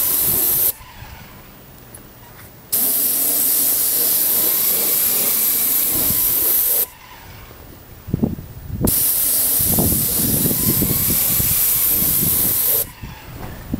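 Paint spray gun on an extension wand hissing as it sprays acrylic latex roof coating. It sprays in three passes: it cuts off just under a second in, starts again about two seconds later, stops again around seven seconds, resumes about two seconds after that, and stops shortly before the end.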